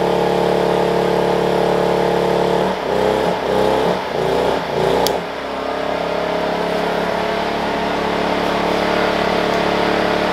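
Wen 56203i inverter generator's small single-cylinder engine running under a heat-gun load. It runs steadily, then about three seconds in its speed surges up and down for a couple of seconds before settling into a new steady note. This is the hunting it does with the heat gun at middle settings, which the owner puts down to the heat gun's controls pulsing its element on and off.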